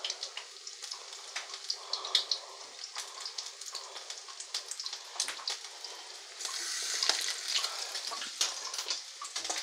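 Battered pieces of flounder frying in hot vegetable oil in a pan. The oil sizzles steadily with frequent crackling pops as it spits, and the sizzle grows louder about six and a half seconds in.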